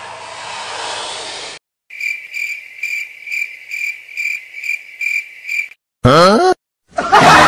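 Cricket-chirp sound effect: a regular series of about nine high chirps, two or three a second, with dead silence between them. It is preceded by a steady rushing noise that cuts off abruptly, and followed near the end by a short, loud cartoon swoop rising in pitch.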